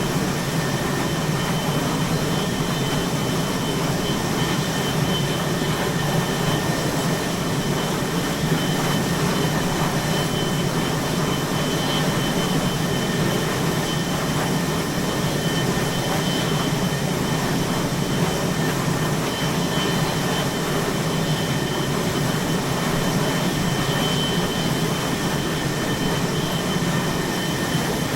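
Aircraft carrier flight deck ambience: a steady, even roar of jet engines and deck machinery, with a thin high whine over it.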